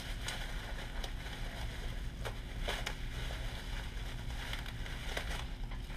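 Packaging being handled and worked open to free a small electric motor: scattered crinkles and clicks over a steady low hum.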